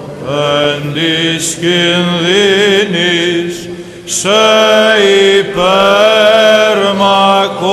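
Greek Orthodox Byzantine chant: a hymn sung in long, ornamented phrases over a steady held low note, with short pauses between phrases.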